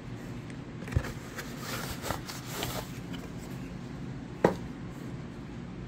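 Cardboard shipping box being handled and moved on a work mat: soft rustling and scraping with two sharp knocks, one about a second in and a louder one near the end.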